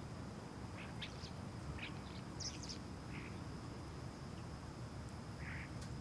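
Residential outdoor ambience: small birds give short scattered chirps over a steady low rumble, with a thin steady high-pitched drone, typical of an insect, underneath.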